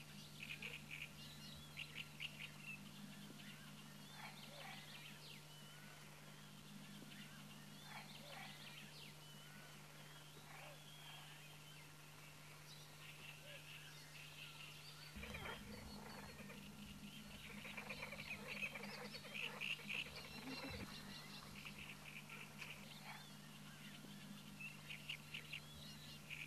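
A flock of greylag geese calling faintly in bunches of short honks and cackles, busiest a little past the middle, over a steady low hum.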